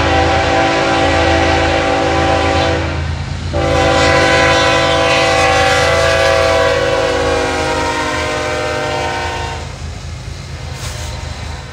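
Locomotive's multi-chime air horn: one blast ending about three seconds in, then a second long blast that sags slightly in pitch before stopping near the end, over the low rumble of the passing train.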